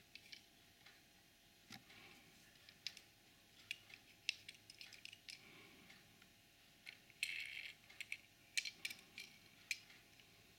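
Faint, scattered clicks and taps of fingers handling a small Hot Wheels die-cast toy car, with a brief rustling scrape about seven seconds in.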